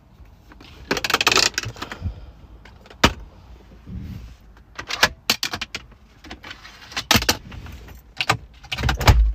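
A series of sharp clicks and knocks over a quiet background, with a short rustling burst about a second in and a heavier low thump near the end.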